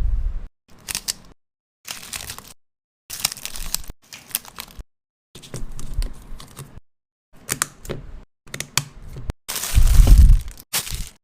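Packaging being handled in short separate bursts: crinkling, tearing and clicking, each cut off sharply into silence, with a heavier rustle and thump near the end.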